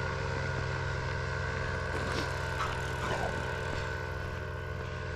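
Paramotor engine running steadily, easing off slightly in level.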